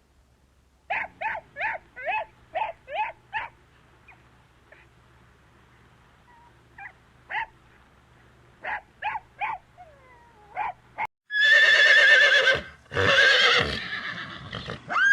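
A quick run of short, high animal calls, then scattered single calls; about eleven seconds in, after a brief silence, a horse neighs loudly in long, shaky whinnies, the loudest sound here.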